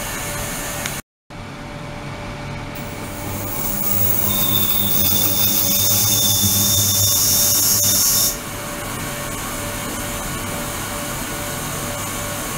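Ultrasonic cleaning tank running, a steady hiss of cavitating, agitated water. It cuts out for a moment about a second in. From about three seconds in, a louder high hiss with a thin high whine builds up, then drops away abruptly after about eight seconds.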